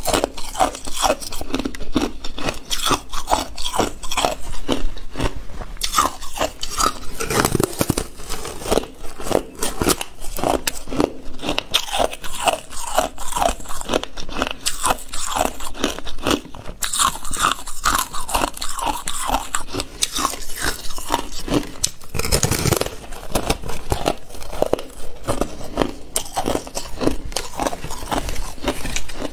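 A person biting and chewing a thin sheet of frosted ice, close-miked: a dense, continuous run of brittle crunches and cracks as the ice snaps and is chewed, with a couple of louder bites.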